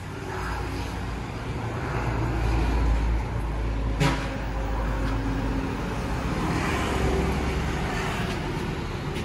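Road traffic going by on a street, motor scooters and other vehicles passing with a low engine rumble that swells about two to three seconds in. A single sharp knock about four seconds in.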